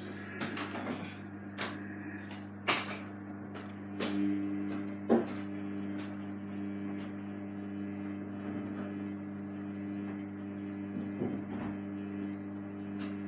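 Samsung washing machine giving a steady low hum while held in a suds lock, with a few scattered clicks and knocks.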